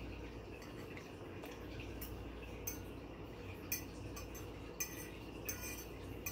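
Metal fork clinking and scraping against a plate while eating, with several sharp clinks in the second half, one near the middle clearly the loudest.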